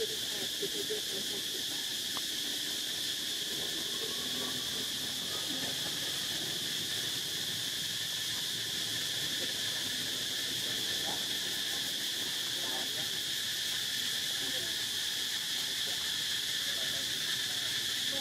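Steady chorus of insects such as crickets or cicadas: a continuous high-pitched buzz that does not let up.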